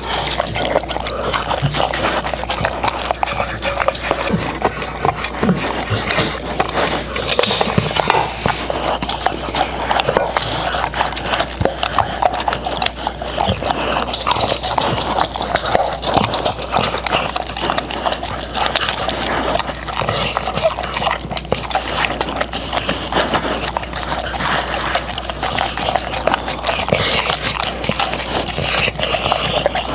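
Dogs licking and eating soft puree from a stainless steel tray: a steady run of wet licking and small clicks against the metal.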